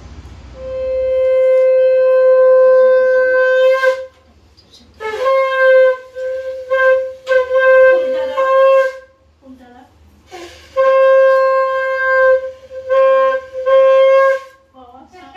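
Conch shell (shankha) blown in a series of blasts on one steady pitch. A long blast of about three seconds comes first, then several shorter blasts, then another long blast of nearly two seconds and a few short ones near the end.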